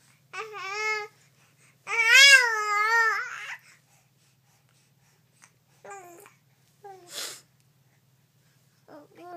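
Baby vocalizing while mouthing his pacifier: two high, wavering cooing squeals, the second longer, followed by a few fainter short sounds and a brief breathy huff.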